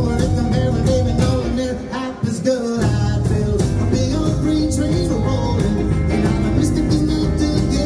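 Live rock and roll band playing: electric guitars, electric bass and drums. The bass and drums stop for about a second shortly before three seconds in, then the full band comes back in.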